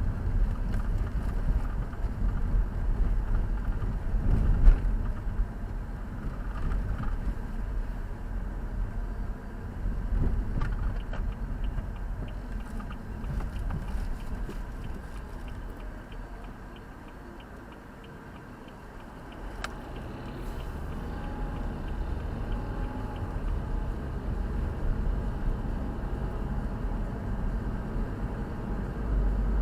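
Road and engine rumble inside a moving car. The rumble eases off around the middle as the car slows, then builds again as it picks up speed.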